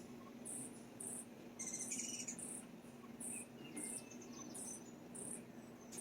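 Insect chirping in short, high-pitched pulses, evenly spaced at about three every two seconds, with a quick burst of bird chirps about two seconds in.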